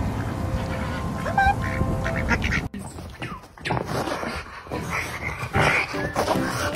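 A pet parrot giving harsh, quack-like squawks.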